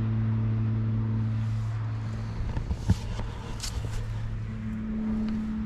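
IHC tractor engine running at a steady speed, with a couple of short clicks near the middle.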